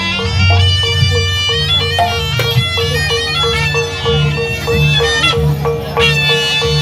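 Live Javanese jaranan music: a reedy, bagpipe-like shawm (slompret) plays a melody over a steady, quick pulse of tuned percussion and low drums.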